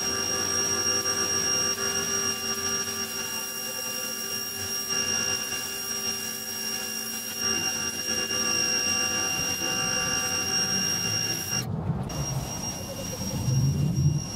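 Ryobi electric pressure washer running steadily: its motor and pump give a high whine with several steady tones over the hiss of the spray hitting concrete. The whine cuts off suddenly about twelve seconds in, leaving a lower, rougher noise.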